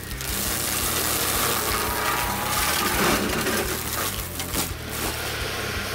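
Forestry mulcher head on a Kubota compact track loader shredding brush and saplings: a dense, steady rushing noise as the cutting drum chews through wood.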